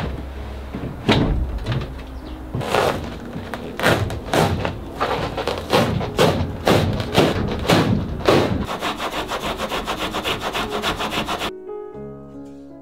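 Rasping scraping strokes, at first one or two a second, then quickening to about five a second before stopping abruptly near the end, as old foam-and-felt insulation lining is scraped and torn off the van's metal body. Background music plays underneath.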